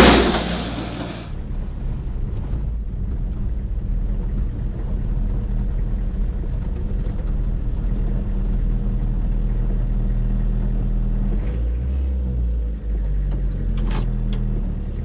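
An old flatbed truck fitted with a crane passes close by at road speed, its engine and tyres hissing on the wet road loudest right at the start, then fading. Then, from inside the cab, the truck's engine drones steadily under way, its note changing about twelve seconds in, with a few sharp clicks near the end.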